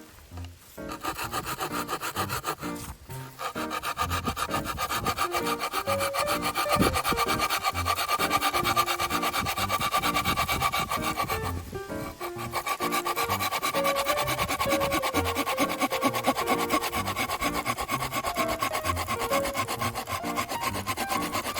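Hand saw cutting through wood in a long run of continuous strokes, with a short break about twelve seconds in, over background music.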